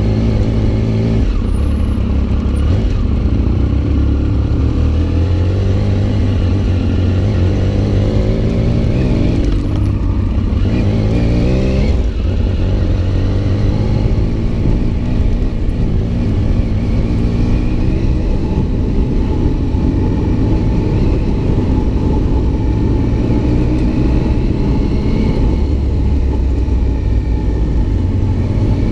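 Adventure motorcycle engine running under way off-road, its revs rising and falling with throttle and gear changes, with a brief drop in sound about twelve seconds in.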